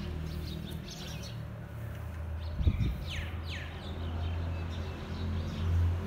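Small birds chirping in short, quick calls, with a run of sharp falling chirps about halfway through. A low steady hum runs underneath, and a brief thump comes just before the falling chirps.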